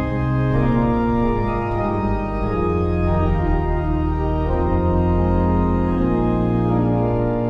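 Slow instrumental music of sustained, held chords that change every second or two.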